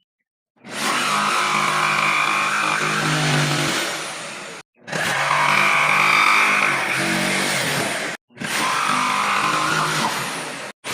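An electric power tool for woodworking running loud and steady with a held whine, coming up about half a second in. It is broken into three stretches by sudden cuts to silence, twice midway and once just before the end.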